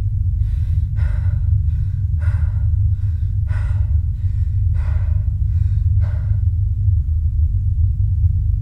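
A man's quick, ragged gasping breaths, about ten in the first six seconds, over a steady low drone that is the loudest sound throughout.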